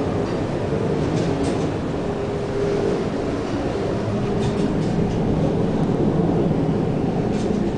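Steady rumble of hurricane wind and the ship's running machinery heard from the bridge of a gas carrier, with low whining tones wavering in and out and a faint tick about every three seconds.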